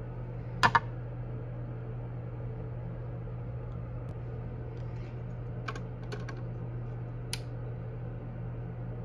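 Clicks and light knocks of a vinyl record and a Crosley suitcase record player being handled, with a loud double click about a second in and a few fainter clicks later on. A steady low hum runs underneath.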